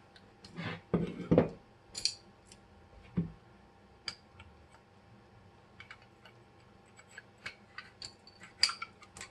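Steel parts of a 1911 pistol clicking and knocking against each other as they are handled and fitted together during reassembly. The clicks are irregular, with the louder ones in the first few seconds and near the end and light ticks in between.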